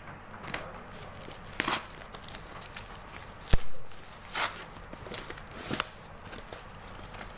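A tape-wrapped cardboard parcel being cut with scissors and torn open by hand: rustling and tearing of cardboard and packing tape, broken by several sharp cracks, the loudest about three and a half seconds in.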